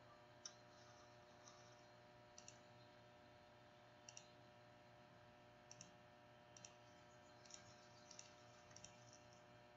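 Near silence with faint, scattered computer mouse clicks, several of them in quick pairs like double-clicks, over a low steady electrical hum.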